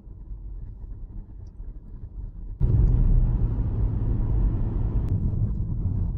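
Road and engine noise of a Toyota car driving, heard from inside the cabin: a steady low rumble that turns suddenly louder, with more hiss, about two and a half seconds in.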